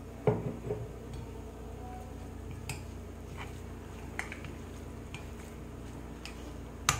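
Metal spoon stirring eggs into moistened couscous flour in a glass bowl: scattered clinks of the spoon against the glass, a dull knock about a quarter second in, and the sharpest clink near the end.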